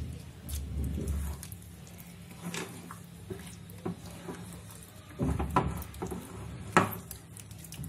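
A spatula stirring thick semolina and milk batter in a glass bowl: wet scraping with irregular clicks and knocks of the spatula against the glass, the loudest about five seconds in and near seven seconds.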